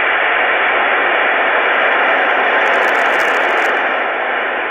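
Open-squelch hiss from a VIC-3 intercom control station's speaker, turned up until it is blasting loud. The hiss is steady and even, with the squelch switched off.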